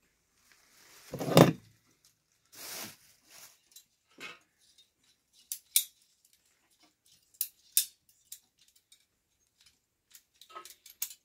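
Plastic pipe fittings and hand tools handled on a metal pipe-welding machine: a thump about a second in, then a scatter of sharp clicks and taps as white fittings are fitted onto the heater's dies.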